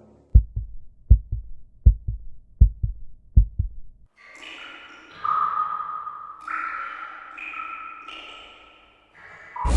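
Heartbeat sound effect: five double lub-dub thumps, steady at about 80 beats a minute. About four seconds in it gives way to a different effect, a run of held high tones that step upward in pitch.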